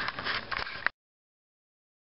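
A few soft clicks and rustles from a sheet of paper being handled, then the sound cuts off to silence a little under a second in.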